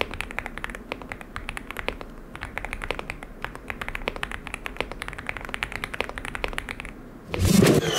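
Typing on a Leobog Hi8 SE aluminium-cased mechanical keyboard: a quick, uneven run of key clicks. Much louder music cuts in near the end.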